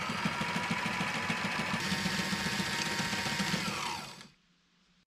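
Electric portable sewing machine stitching heavy canvas at speed: a steady motor whine over a fast, even stitch rattle. It winds down and stops about four seconds in.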